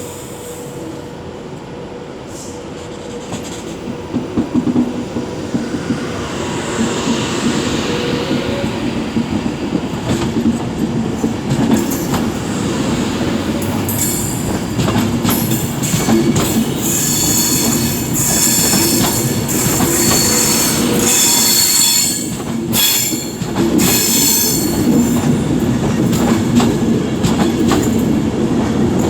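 Class 390 Pendolino electric train pulling out and gathering speed, growing steadily louder. Its wheels click over rail joints, and from about halfway through a high wheel squeal joins in.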